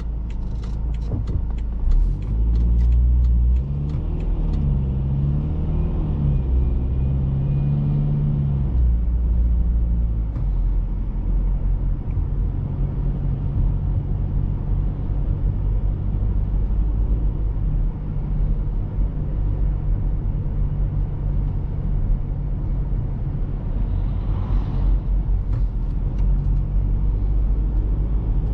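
In-cabin sound of a BMW X3 F25 2.0d's four-cylinder diesel engine with ZF automatic gearbox on the move: a run of clicks in the first few seconds, the engine pitch rising and falling for about the first ten seconds as the car picks up speed, then a steady low engine and tyre drone at cruise.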